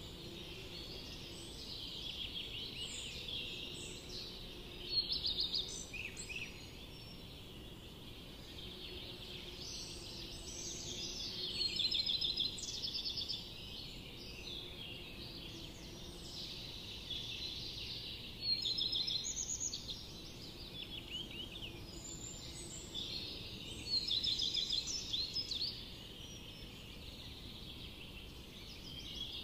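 A flock of small birds chirping and trilling in a busy, continuous chatter that swells into louder spells every few seconds.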